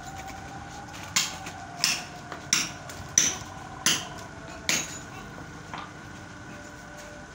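A metal hand tool striking at a manhole cover, six sharp, ringing blows about two-thirds of a second apart, then a fainter one. These are the knocks of working a stuck cover loose to open the manhole.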